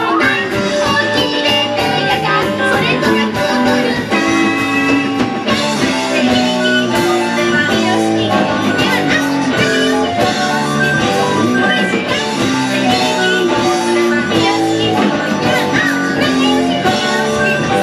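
Live rock band playing a pop song: drums keeping a steady beat under electric guitar, electric bass and keyboard, with female singing.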